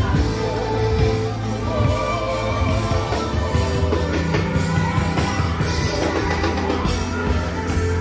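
Amplified rock music played live from a stage PA: a singing voice over drums and a steady bass line.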